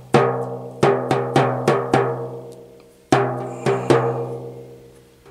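Fingers tapping the taut FEP film of an Elegoo Saturn 8K resin vat, each tap ringing like a small drum: a quick run of about six taps, then three more about three seconds in. The drum-like ring is how the film's tension is checked before deciding to replace it.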